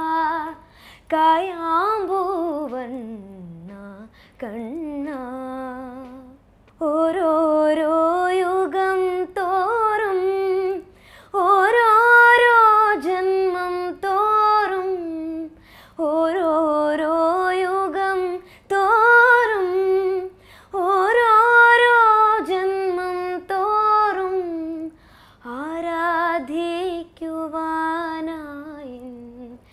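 A girl singing a Malayalam song unaccompanied, in phrases a few seconds long with a wavering, ornamented pitch and short breaths between them.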